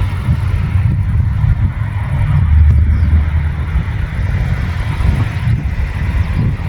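New Holland CR10.90 combine harvester running while threshing barley: a steady, heavy low rumble of engine and threshing machinery that swells a little near the middle.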